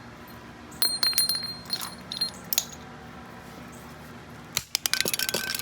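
Small metal door-lock parts clinking and jingling against each other, with short ringing clinks about a second in. Near the end there is a sharp knock followed by a quick run of metallic clinks.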